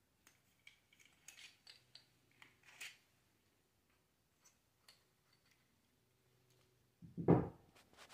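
Metal parts of a stainless-steel door knob lockset clicking and rattling lightly as they are handled, then a louder knock about seven seconds in.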